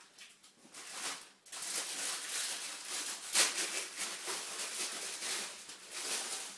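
Sleeping puppy twitching while dreaming: dense rustling and scratching against her bedding that starts about a second and a half in, with one sharper scratch about halfway through.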